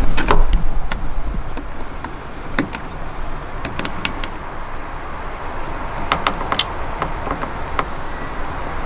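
Scattered light clicks and clinks of pliers working a spring hose clip on a coolant hose at the expansion tank, a cluster of them about six seconds in, over a steady hiss.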